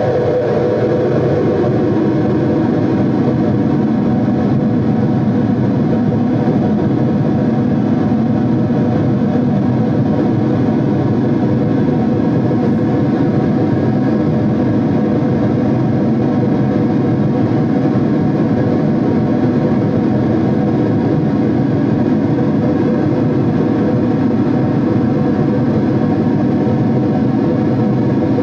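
Harsh noise music: a loud, unbroken wall of dense noise with many held drone tones layered through it, steady throughout.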